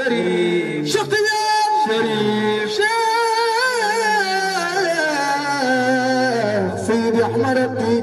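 A man sings a religious praise chant for Sheikh Tijani into a microphone, amplified, in long wavering held notes; through the middle of the phrase his line falls slowly in pitch, with short breaks about a second in and near the end.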